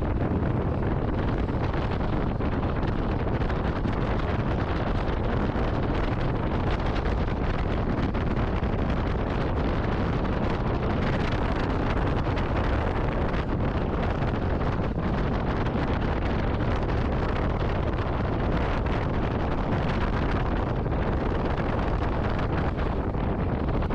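Honda Rebel motorcycle running steadily while being ridden, under constant wind noise buffeting the microphone.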